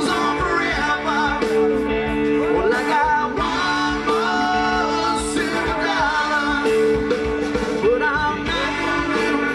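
Live southern-rock band playing: electric guitars, electric bass and drums, with a voice singing over them.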